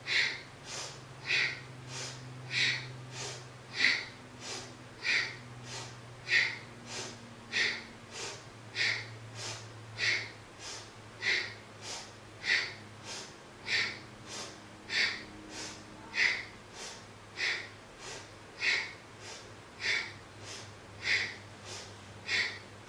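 Rapid rhythmic yogic breathing in time with a seated spinal twist: a sharp breath on each turn, inhale to one side and exhale to the other, about one and a half breaths a second, evenly paced.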